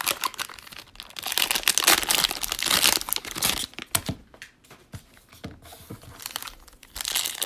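Cellophane wrapper of a trading-card cello pack crinkling as it is torn open and handled. The crackle is densest in the first half, thins out around the middle, and picks up again near the end.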